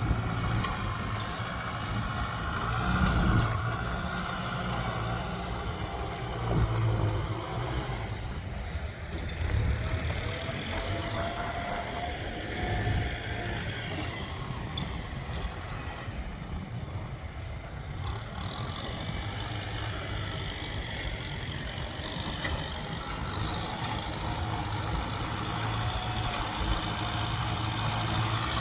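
Heavy vehicle engines, a tractor and trucks, running with a steady low hum that swells louder every few seconds and then eases back.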